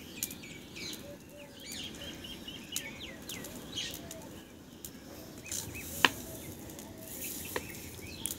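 Small birds chirping over a low, steady background rumble, with a quick run of about six repeated notes about two seconds in. Several sharp cracks cut through, the loudest about six seconds in.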